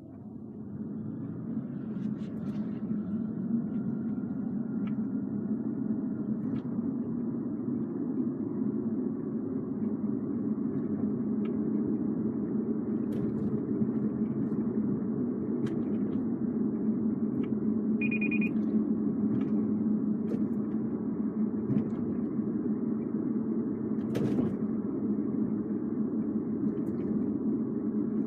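Inside the cabin of a 210-series Toyota Crown Athlete Hybrid on the move: steady road rumble that builds as the car pulls away, with a faint rising whine in the first few seconds. Scattered light ticks and clicks sound throughout: the abnormal noise while driving, which the owner suspects may come from the moonroof. A short beep sounds about two-thirds of the way in.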